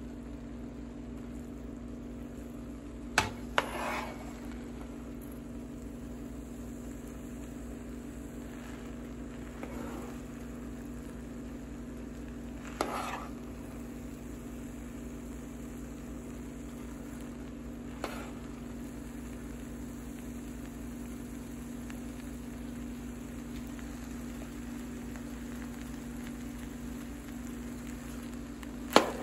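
Seasoned rice and steak being stirred and turned with a spatula in a large frying pan over low heat, with a faint steady sizzle and a low hum underneath. The spatula knocks sharply against the pan a few times, twice about three seconds in, once about thirteen seconds in, and loudest near the end.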